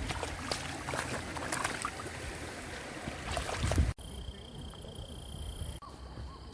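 Shallow creek water running and splashing, with many small splashes as dogs wade through it. About four seconds in, the sound cuts off abruptly to a quieter background.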